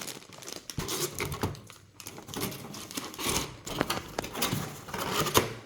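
Cardboard box and plastic packaging rustling and crinkling, with irregular small knocks and scrapes, as a large Lego set's box is opened and emptied.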